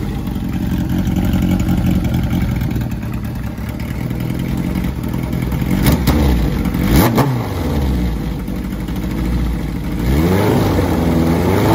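1977 Kawasaki KZ1000's air-cooled inline-four engine running at idle. It is blipped sharply about halfway through and revved up and back down near the end.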